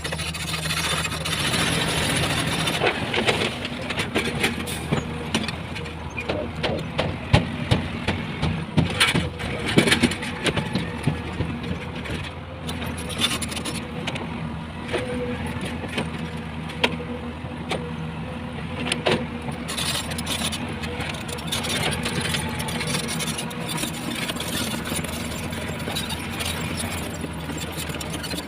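Heavy diesel construction machinery running steadily, with a run of sharp knocks and clanks from about three to twenty seconds in.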